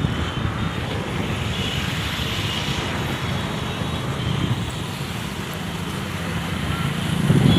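Steady vehicle and traffic rumble, with a few short high beeps like distant horns and a slight swell in loudness near the end.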